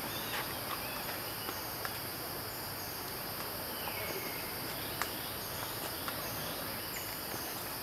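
Steady high-pitched chorus of insects, a continuous shrill drone with short repeating trills layered over it. A few faint ticks come through.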